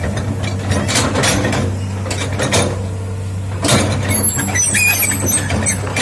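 Hitachi hydraulic excavator's diesel engine running steadily under work, with sharp clanks and knocks from the machine and, from about four seconds in, high metallic squealing.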